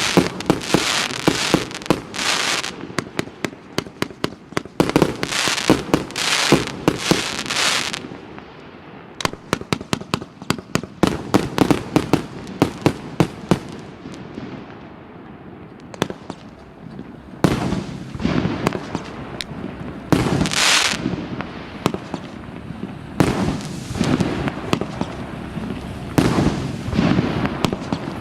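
Firework cake (a 228-shot fan cake of 30 and 50 mm calibre) firing: rapid strings of launch shots and shell bursts come in waves, thinning to single spaced shots for a few seconds in the middle before building again.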